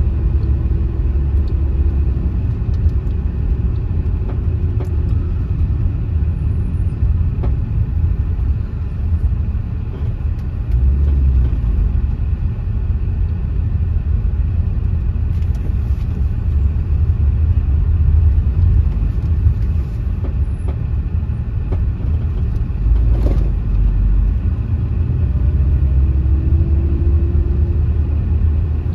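A vehicle travelling along a road: a steady low rumble with a faint engine hum that rises in pitch near the end.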